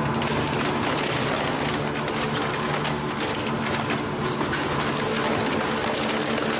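Industrial shredding machine running: a steady motor hum with many sharp cracks and crunches of material being broken up.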